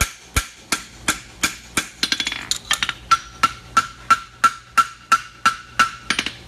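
Hammer striking metal on an anvil in a steady rhythm, about three blows a second, with a clear metallic ring from about halfway through.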